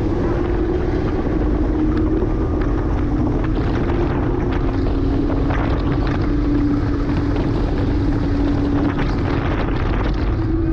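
2009 Porsche Cayman S's 3.4-litre flat-six engine running hard on a track lap. Its pitch sags slightly through the middle and climbs again near the end.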